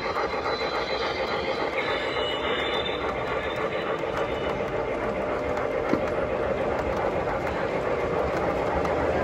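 O-scale model train running past: an MTH Premier PS2 PRR Q-2 4-4-6-4 steam locomotive with its onboard steam sound, pulling freight cars that rumble steadily over the three-rail track.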